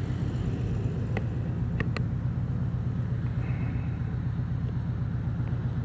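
Harley-Davidson Road King Special's V-twin engine idling with a steady low rumble. A few light clicks sound about one and two seconds in.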